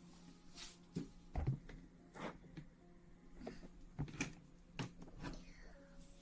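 Close-miked ASMR rustling: a string of soft knocks and short brushing swishes, about eight or ten spread unevenly, over a low steady hum.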